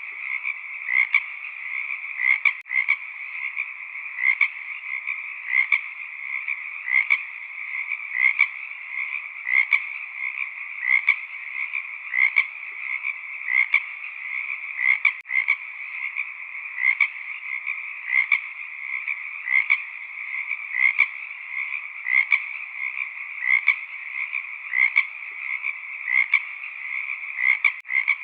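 Frogs calling in a steady chorus, with one louder croak repeating about once every second.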